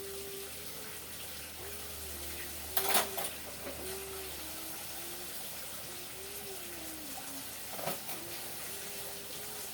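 Water running steadily in a kitchen, with two short knocks, one about three seconds in and one near eight seconds.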